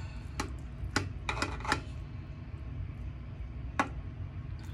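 Metal utensil clicking and tapping against a glass loaf pan of baked meatloaf: a quick cluster of sharp clicks a second or two in, and one more near the end, over a steady low hum.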